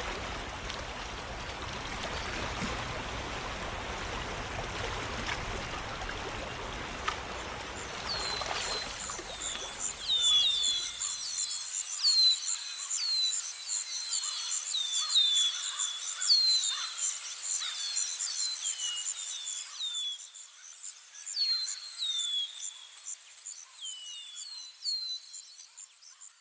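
Nature ambience sound effects. A steady rush of flowing water stops abruptly about eleven seconds in. From about eight seconds, birds call in repeated short falling chirps over a continuous high trill.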